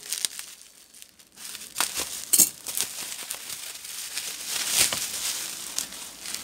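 Plastic bubble wrap crinkling and rustling as it is handled and pulled off a replacement laptop keyboard. It is quieter for the first second or so, then comes in irregular crinkles, with the sharpest crackle about two and a half seconds in.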